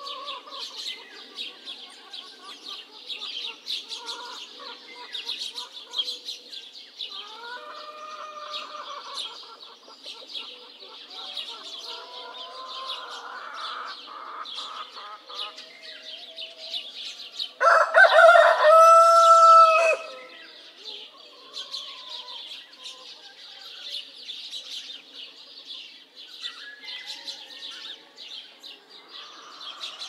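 A rooster crows once, loud and about two and a half seconds long, a little past the middle. Around it, hens cluck now and then over a steady high chatter of small birds chirping.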